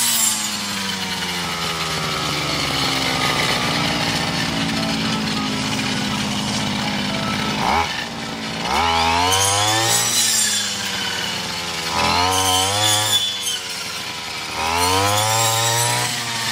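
Petrol brush cutter with a fodder-harvester attachment cutting tall Co-4 fodder grass. Its small engine's pitch sinks slowly for the first several seconds, then it revs up sharply about eight seconds in and surges up and eases off three times as the blade works through the stalks.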